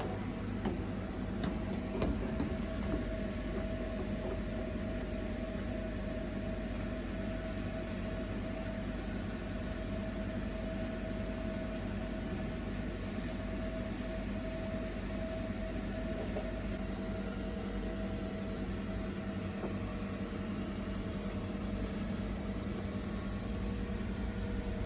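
Steady machinery hum with a held tone, and a few light knocks in the first three seconds as the rotary plywood die board is being fitted onto the machine.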